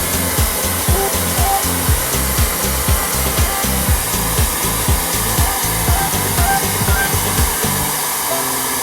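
A hair dryer blowing steadily under background music with a regular bass beat; the beat stops near the end while the music's held notes go on.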